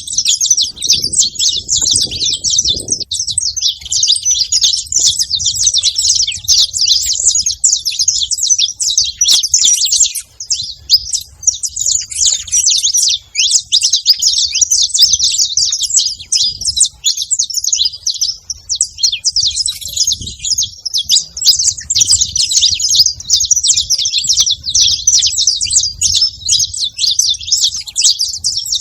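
Saffron finches chirping at a feeding spot, a dense unbroken chatter of rapid high-pitched chirps.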